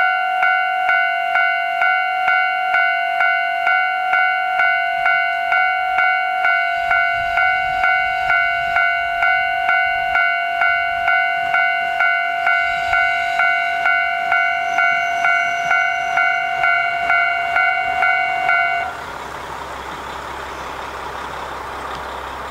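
Level-crossing warning bell ringing about twice a second, stopping a few seconds before the end. Under it, a KiHa 40 diesel railcar rumbles in and stops at the platform, its diesel engine running on.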